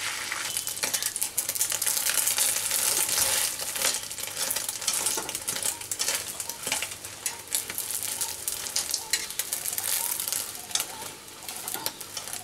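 Egg omelette batter sizzling and crackling in hot oil in a kadai, with a spatula scraping and tapping against the pan now and then.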